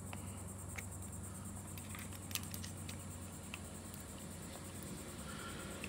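Faint, scattered small clicks and taps of a screwdriver and fingers working the breaker-point plate's lock-down screws, over a steady low hum and high hiss.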